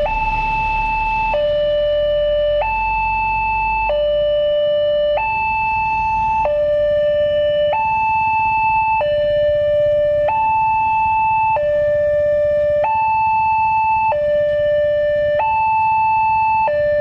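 Railway level-crossing warning alarm sounding from the horn loudspeaker on the signal post. It is a steady two-tone electronic alarm that alternates between a higher and a lower tone, each held about a second and a quarter, warning that a train is approaching and the barriers are down. A low rumble runs under it for the first few seconds.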